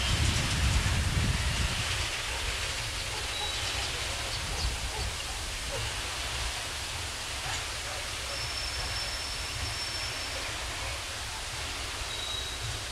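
Loaded coal wagons rolling slowly away over curved track and points: a steady low rumble with a hiss over it, loudest in the first couple of seconds and then easing off, with a few faint high squeaks.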